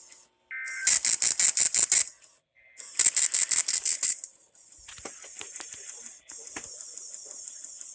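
Weather-radio receiver noise: a loud, fast-pulsing crackling hiss that comes in several blocks with short breaks. Two brief warbling data tones are heard about half a second in and again near three seconds, typical of the EAS end-of-message bursts that close a NOAA Weather Radio test.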